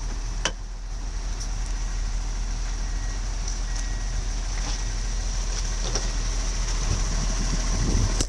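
Diesel engine of a standing Syntus LINT multiple unit idling: a steady low rumble with a thin, even high whine above it, and one sharp click about half a second in.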